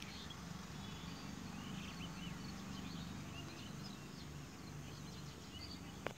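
Outdoor ambience of many small birds chirping over a steady low rumble, with one sharp click near the end.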